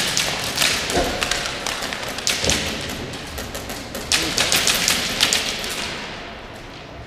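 Airsoft guns firing in rapid bursts: quick strings of sharp clicks, three bursts, the last and longest about four seconds in.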